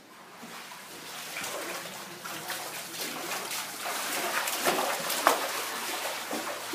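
Water splashing and running, a rushing hiss that slowly grows louder, dotted with many small splashes and drips.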